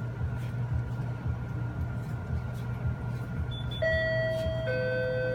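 Two-note electronic chime, a higher note then a lower one about a second later, each held and ringing on, over a steady low hum and faint small clicks.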